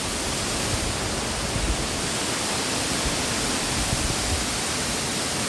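Corbett Fall waterfall rushing as a steady, loud wall of water noise, close up.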